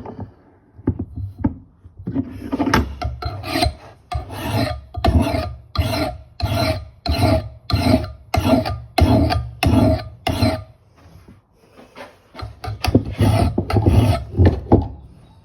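Flat file rasping in even strokes along the steel edge of an old Kentish axe head, sharpening it, about two strokes a second. After a short pause about eleven seconds in, the strokes start again, more uneven.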